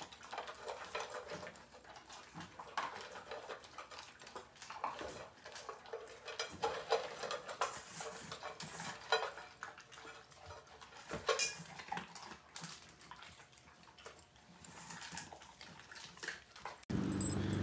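Cutlery and dishes clinking during a meal, in light scattered clicks. A louder, steadier noise starts abruptly near the end.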